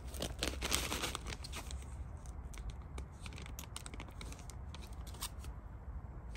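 Rustling of tarp and bivy fabric as a person shifts about on it, then a run of sharp light clicks and crackles for a few seconds.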